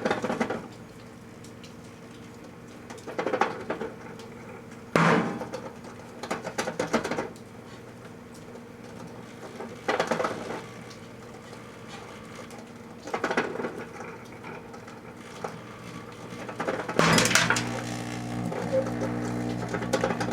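Microwave oven running with a steady hum while a singing plush toy cooks inside. Irregular bursts of crackling and popping come every few seconds, with a longer, louder stretch near the end, after which the hum grows stronger.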